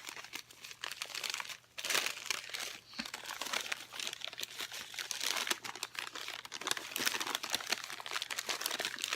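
Packaging crinkling and rustling as a wrapped item is handled and unwrapped. Dense crackling runs throughout, with a couple of brief pauses in the first three seconds.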